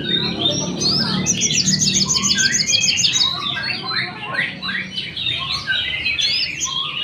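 Crested jay (sogon) singing a loud, varied run of chirps and whistles, with a fast string of repeated high notes, about ten a second, from about one to three seconds in.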